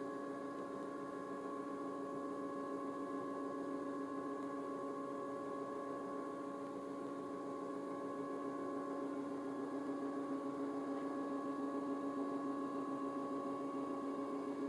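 Steady machinery hum of a ship heard from the deck: several constant tones, one low and one higher whine, growing slightly louder in the second half.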